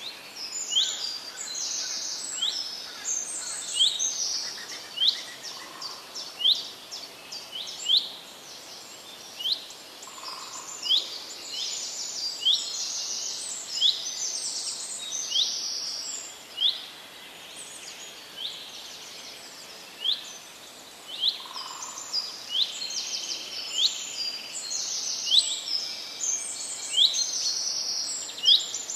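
Small forest birds calling together: high, quick chirps and trills, with one short upswept note repeated about once a second.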